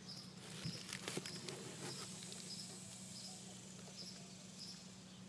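Faint clicks and light rustling from handling an Alpine car speaker among plastic packaging, mostly in the first two seconds. Behind it, a faint high chirp repeats about every two-thirds of a second.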